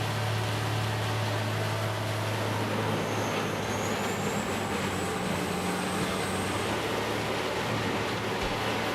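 Large industrial wood grinder running steadily: a deep, even engine drone under a broad grinding noise, with a faint high whine that rises slightly in the middle.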